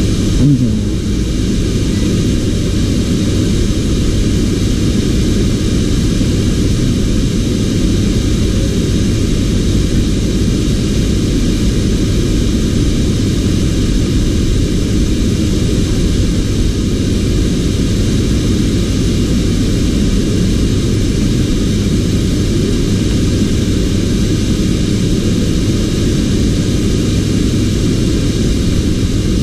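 A machine running steadily, heavy in the low end, with a short rising whine about half a second in.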